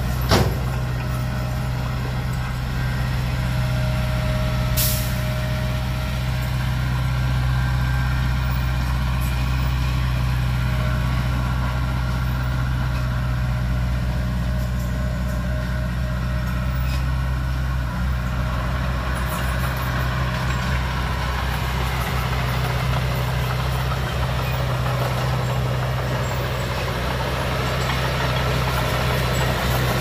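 Heavy diesel machinery running steadily: a dump truck and a small crawler bulldozer working on a soil fill, giving a continuous low engine drone. A short hiss, typical of an air brake, comes about five seconds in.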